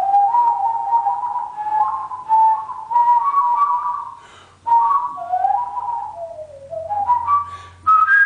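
A person whistling through puckered lips, warbling: flicking rapidly back and forth between two notes, the tongue switching the notes. There is a short break about four and a half seconds in, and near the end the pitch steps down and then climbs back up.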